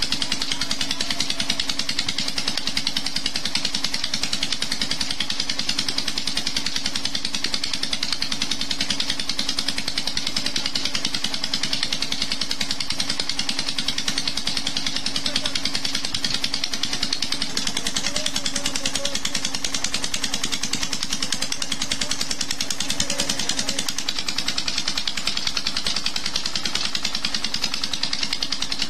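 Petter stationary diesel engine running steadily on pure jatropha oil, its even, rapid firing beat unchanged throughout.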